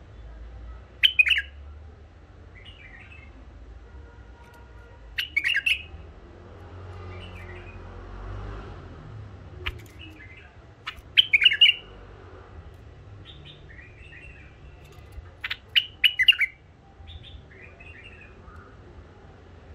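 White-eared bulbul singing: four loud, short warbled phrases spaced a few seconds apart, with softer chattering notes in between.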